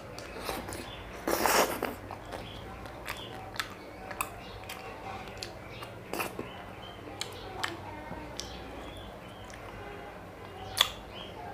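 Close-up eating of chocolate-coated ice cream bars: mouth clicks, lip smacks and sucking noises, with a louder noisy burst of biting and slurping about a second and a half in and a sharp click near the end.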